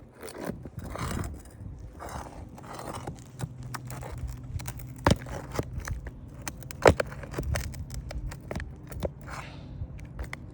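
Asphalt roof shingles being pried up and scraped with a tool: repeated scraping with sharp clicks and knocks, two louder knocks about five and seven seconds in.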